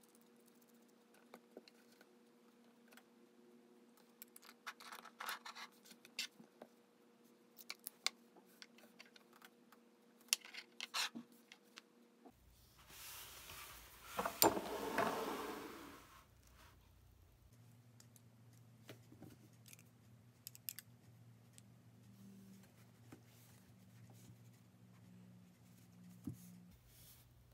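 Light clicks and taps of a fountain pen being handled and screwed back together after filling. About halfway through comes a rubbing slide, the loudest sound, as a spiral-bound sketchbook is pushed across a wooden desk, followed by a few faint handling taps.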